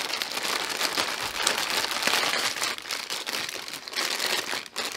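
Packaging crinkling and rustling continuously as hands open a remote and accessory pack.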